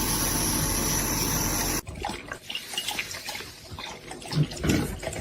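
Steady rush of running or spraying water that cuts off abruptly about two seconds in, followed by quieter scattered clicks and knocks.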